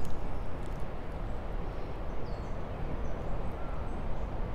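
Outdoor ambience: a steady low rumble on the microphone, with a few faint, short bird chirps high above it, about halfway through and again near the end.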